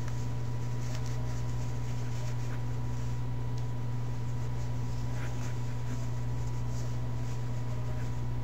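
Soft scratchy rustling of a terry-cloth bath towel as its rolled tips are pulled out by hand, heard over a steady low electrical hum with a faint high tone.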